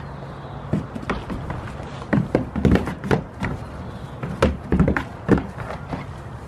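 Goat kid's hooves tapping and knocking on the wooden roof of a small shelter as it prances and jumps about on it: an irregular run of sharp knocks, starting about a second in and ending shortly after five seconds.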